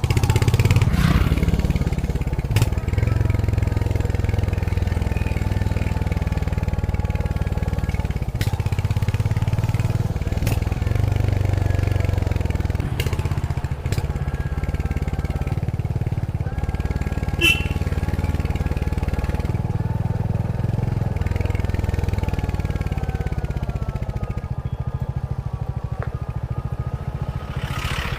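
Royal Enfield Hunter 350's single-cylinder engine running through its stock exhaust while riding, with the engine note easing down for a moment near the end and a few sharp knocks along the way.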